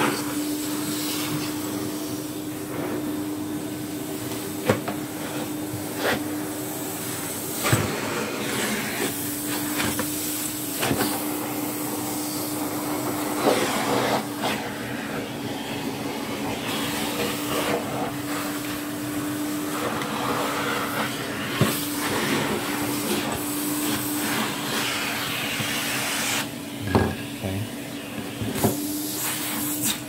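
Electrolux 87 vacuum cleaner running steadily, a constant motor hum with a rush of air, as its long bent crevice tool sucks dust out of a thick cloth vacuum bag. Short knocks and rustles come from the nozzle working inside the fabric.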